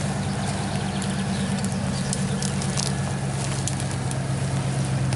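Lifted Dodge Ram 1500 pickup's engine running steadily at low revs as the truck crawls slowly over rough off-road ground, with scattered small clicks and crackles over it.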